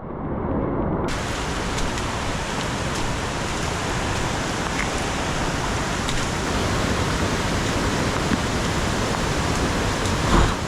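Steady rush of water, the loud even noise of rain and a waterfall or stream, with a single thump near the end.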